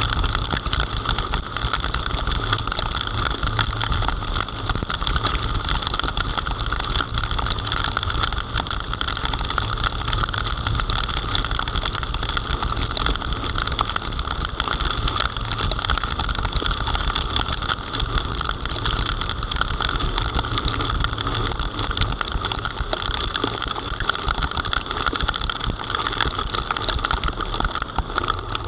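Heavy rain falling steadily, a dense patter of drops striking close by, over a low steady rumble.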